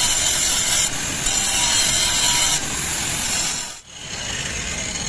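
Loud rasping hiss of metal being ground, with sparks flying, breaking off briefly twice. After a cut near the end comes a steadier, quieter crackling hiss of stick arc welding on the tie rod end.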